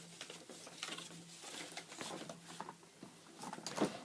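Small hard objects being handled and rummaged through: a string of light scrapes, rustles and clicks, with a few sharper knocks near the end.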